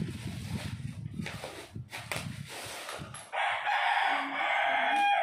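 A rooster crows once, starting about three seconds in and lasting about two seconds, a loud, strained call that rises slightly at its end. Before it there are low rustles and knocks.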